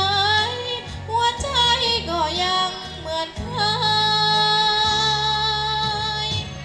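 A young girl singing a Thai song into a microphone over backing music: shorter sliding phrases first, then one long held note for most of the second half.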